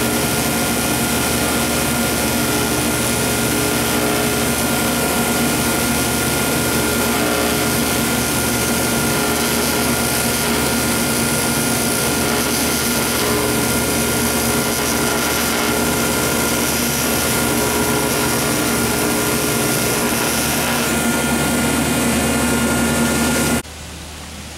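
AC TIG (heliarc) welding arc on aluminum, a steady buzzing hiss with a constant hum from the welding setup underneath. It cuts off abruptly near the end.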